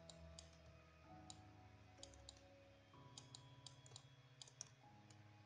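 Faint computer mouse clicks, a dozen or so scattered irregularly, over near silence with faint low held tones.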